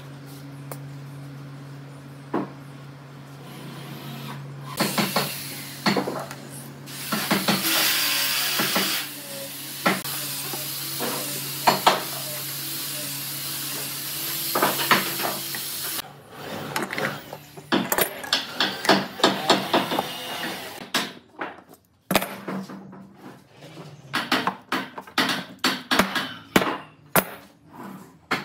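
Workbench handling noises as glued wooden laminations and metal clamps are worked: a low hum at first, then a long stretch of noisy scraping with knocks, then a quick run of sharp wooden and metal clacks and knocks.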